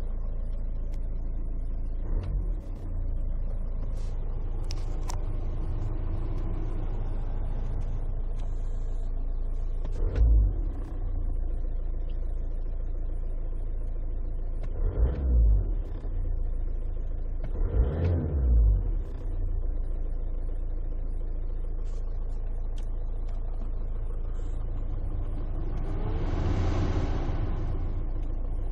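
Inside a moving Škoda Octavia II: steady road and engine rumble, jolted by bumps a few times, with a rattle from the glove compartment. The car's noise swells briefly near the end.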